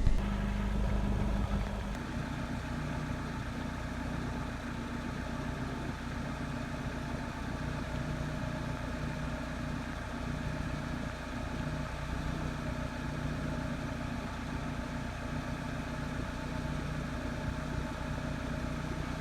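1995 Honda Civic's four-cylinder engine idling steadily through its freshly welded exhaust, with no leak to be heard. It drops a little in level about two seconds in.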